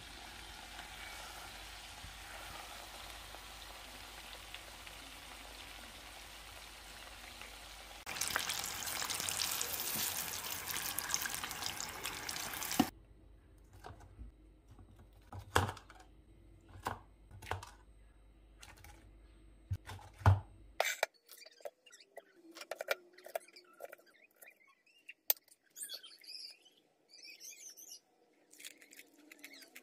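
Breaded chicken deep-frying in a pot of oil, a steady sizzle that grows louder about eight seconds in and cuts off abruptly. Then sharp clicks and taps of tongs on a metal mesh strainer, and birds chirping faintly near the end.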